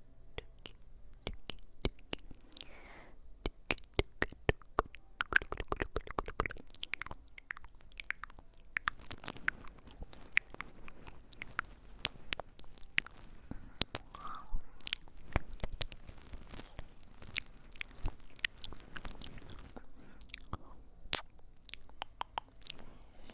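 Close-miked ASMR trigger sounds: a dense, irregular stream of sharp crisp clicks and crackles, thickest about five to seven seconds in and again near the end.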